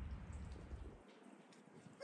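Faint outdoor background noise, with a low rumble that drops away abruptly about a second in.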